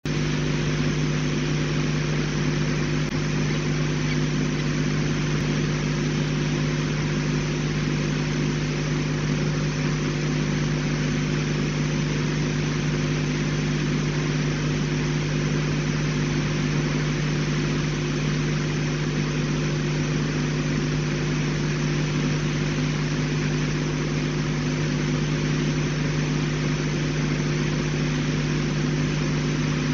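Steady, unchanging hum made of several held low tones over a constant hiss, with no bird calls or other events.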